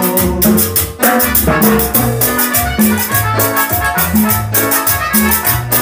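Salsa band playing an instrumental passage, with a repeating bass line and steady, rhythmic hand percussion under sustained melodic notes; the music drops off briefly about a second in.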